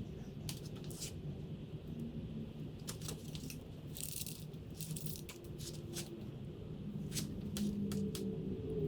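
Scattered light clicks and rattles, a dozen or so at uneven intervals, as of small hard parts being handled, over a steady low hum.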